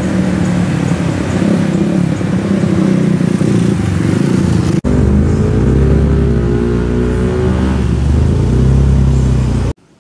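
Motorcycle engines running close by, a loud low drone whose pitch drifts slowly. It breaks off sharply about halfway through, resumes, and cuts off suddenly near the end.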